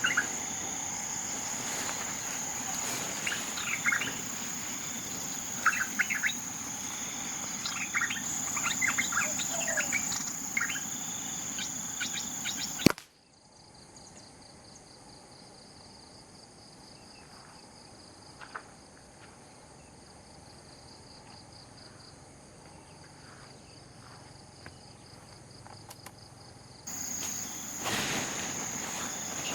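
Forest ambience: a steady high-pitched insect drone with scattered short bird chirps. About halfway through it cuts off suddenly to a quieter stretch with a fainter, pulsing insect buzz, and the louder drone with chirps comes back near the end.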